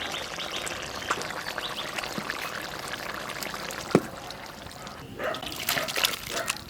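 Bubbling, trickling liquid of a tilapia fish curry at the boil, with a single sharp knock about four seconds in.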